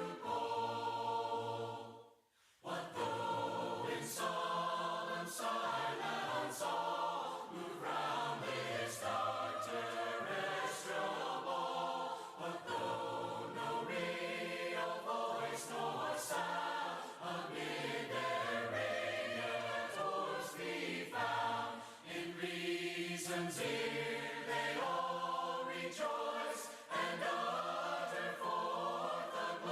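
A congregation singing a hymn a cappella in parts, voices only with no instruments, with a short breath pause about two seconds in.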